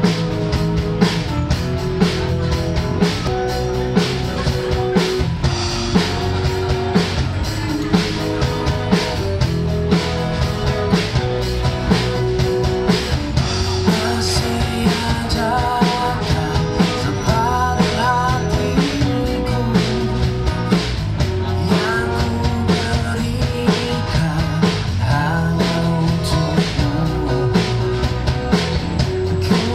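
Live band playing amplified through a PA speaker: acoustic guitar and drum kit with a man singing into a microphone.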